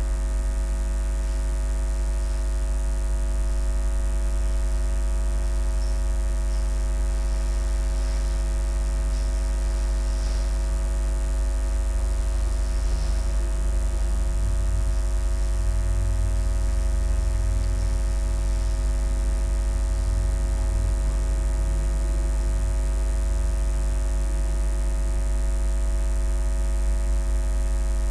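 Steady electrical mains hum with a layer of hiss, picked up by a poor-quality microphone.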